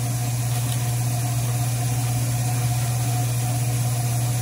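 Steady low electric motor hum from a running kitchen appliance, with a fainter steady higher tone above it.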